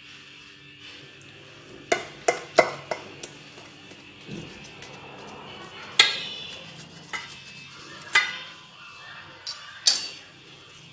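Kitchen knife clinking and scraping against a stainless steel plate while slicing a thick sweet pancake (martabak manis). A quick run of clinks about two seconds in, then single clinks every second or two, some ringing briefly, the loudest about six seconds in.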